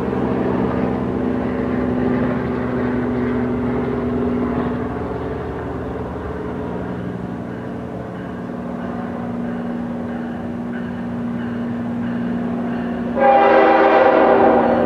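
Approaching freight train's locomotive: a steady low drone, then a loud horn blast begins about 13 seconds in and holds to the end. The uploader says the horn was blown away from any crossing or whistle sign, because the train met a yellow signal.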